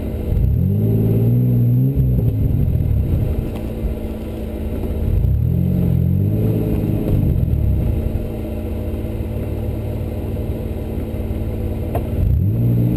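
An off-road 4x4's engine running with three revs, each a rise and fall in pitch lasting about two seconds, settling back to a steady idle between them.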